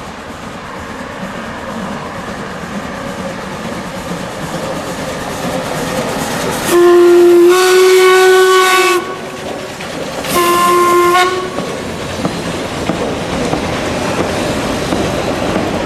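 Narrow-gauge steam locomotive 83-180 giving two blasts on its steam whistle as it passes: a long one about seven seconds in, then a shorter one a second later. Both blasts sound over the train's running noise, which grows louder as it approaches.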